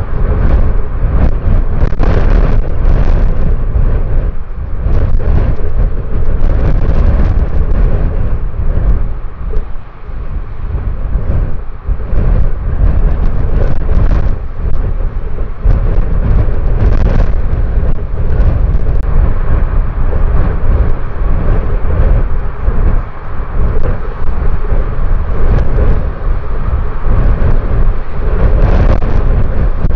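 Strong gusting wind buffeting the microphone: a loud, continuous low rumble that surges and eases with the gusts, dropping briefly about ten seconds in.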